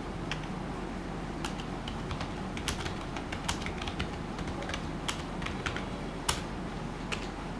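Typing on a Cosmic Byte Dark Matter membrane gaming keyboard: a run of irregular key clicks and taps, with a few louder key strikes scattered through it.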